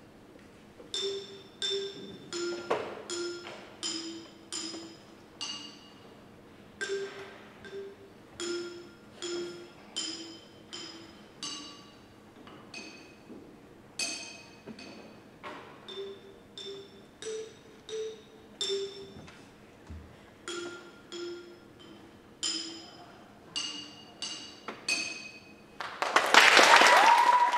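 Orff-style mallet instruments (xylophones) playing a slow melody of single struck notes, about one or two a second, each ringing briefly. A short loud burst of noise cuts in near the end.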